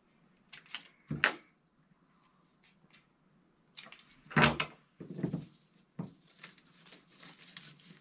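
Flower-arranging handling noises: a few sharp clicks and knocks on a wooden tabletop, the loudest about four and a half seconds in. Near the end, a light rustling of stems and leaves as flowers are pushed into a vase.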